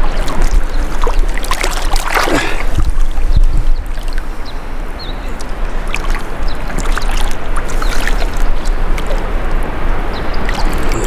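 Shallow river water sloshing and trickling around a large flathead catfish held by the tail in the current while it recovers before release, with a louder splash about two seconds in.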